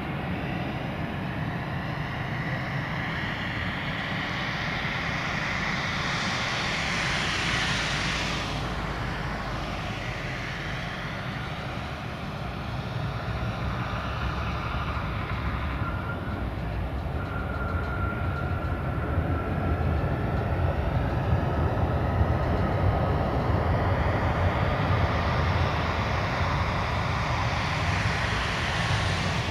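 Boeing 737-800's CFM56 jet engines passing low overhead on final approach, the noise peaking about seven seconds in with a sweep falling in pitch. After touchdown a thin steady whine holds for a few seconds, then the engine noise builds loud again during the rollout.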